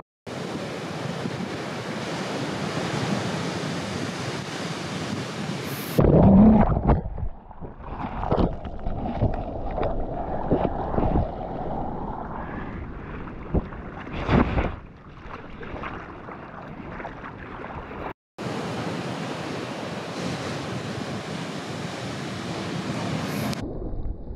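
Ocean surf and rushing water close to the microphone, with wind buffeting it. Loud splashes and thuds come about six seconds in and again around fourteen seconds, and the sound cuts off abruptly several times.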